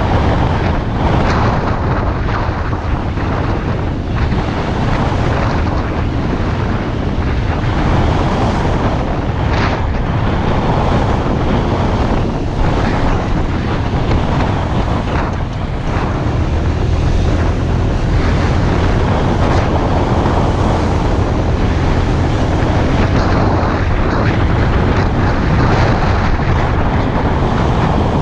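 Steady wind buffeting on an action camera's microphone during a ride on a Honda PCX 125 scooter, with the scooter's single-cylinder engine and road noise underneath.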